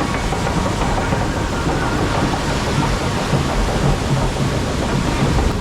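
Rushing water and a steady low rumble around a round raft on a river-rapids ride, loud and unbroken.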